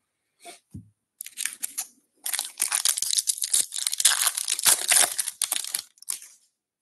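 Foil wrapper of a 2024 Topps Series 1 baseball hobby pack being torn open and crinkled by hand. A few light handling noises come first, then dense crinkling and tearing runs for about five seconds and stops shortly before the end.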